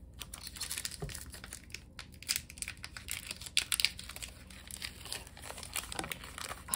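Foil wrapper of a Pokémon card booster pack crinkling as it is handled, in a run of quick crackly rustles.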